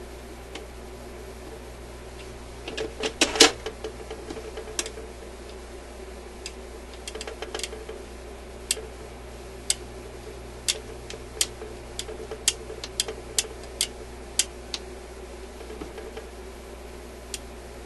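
Small metal parts of an Admiral suitcase record player's changer mechanism clicking as they are fitted back together by hand. There is a cluster of clicks about three seconds in, then single sharp clicks every second or so, over a steady low hum.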